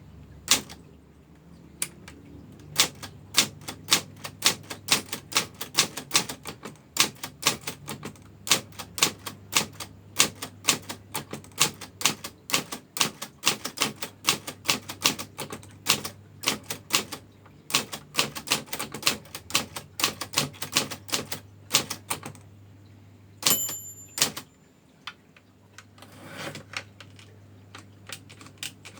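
Manual typewriter being typed on: fast, irregular keystrokes, with the typebars striking sharply. Near the end of the line the margin bell rings once, followed by a few clicks and a longer sliding rasp as the carriage is returned.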